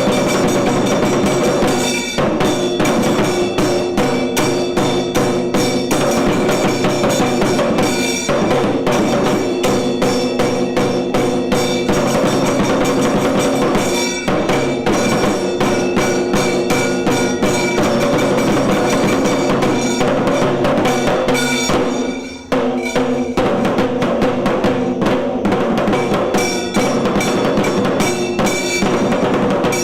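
Tiru Kailaya Vadya, a Tamil Shaiva temple ensemble, playing: fast, dense drumming and metallic ringing percussion over steady held tones, with a brief break about 22 seconds in before the playing picks up again.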